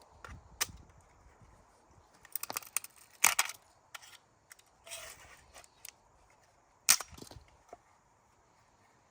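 Scattered sharp knocks and clicks, a quick cluster of them about two and a half seconds in and the two loudest near three and seven seconds in.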